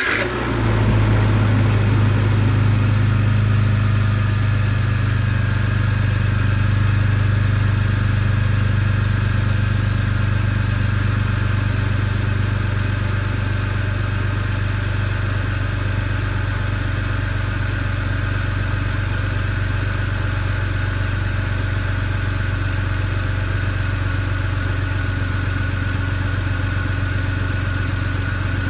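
BMW E46 engine running just after starting, a little louder in the first few seconds and then idling steadily.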